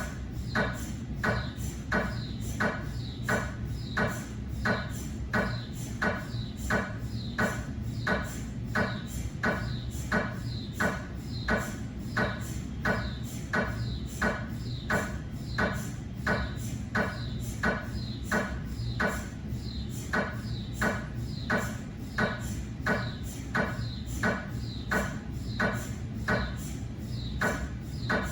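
GE 3T Twinspeed MRI scanner running a cardiac scan sequence: its gradient coils knock in a steady, even rhythm of just under two knocks a second, over a steady low hum.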